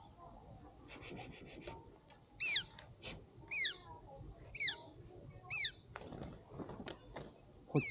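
A bird's sharp, high call sweeping steeply downward in pitch, repeated four times about a second apart, then once more near the end, with a brief rapid chatter before the first call.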